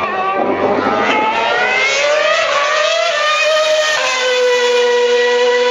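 Formula One cars' 2.4-litre V8 engines at high revs. The pitch rises steadily as a car accelerates, then about four seconds in the sound switches abruptly to a steady high engine note as a Red Bull RB8 with its Renault V8 passes.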